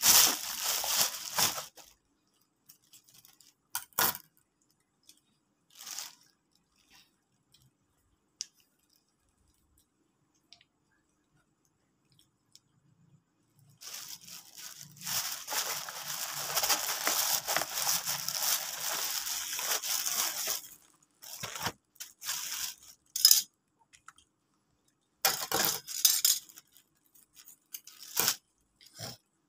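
Crispy fried chicken being torn apart by hand and crunched while eaten, in short scattered bursts, with a longer stretch of crunching about halfway through.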